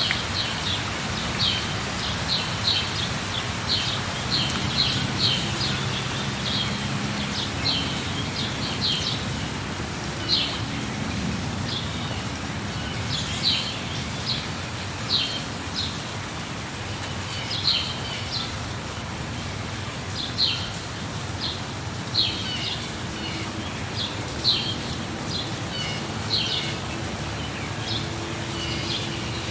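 Steady rain falling, with a bird calling over it in short high chirps that come in little clusters every second or two.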